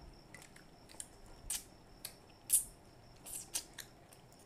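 Ripe mango slices being sucked and bitten off the peel: a string of short, sharp, wet slurps, the loudest about halfway through.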